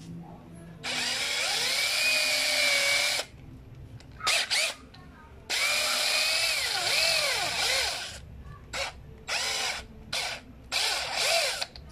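Electric hand drill with a small bit, run in bursts: two long runs of a couple of seconds each, then several short blips, its whine rising and falling in pitch as the trigger and load change. It is boring out a blockage in the part.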